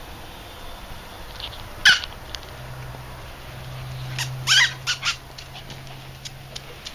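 Small white Havanese dog giving short high-pitched yelps: one sharp yip about two seconds in, then a quick run of three or four more about four and a half seconds in.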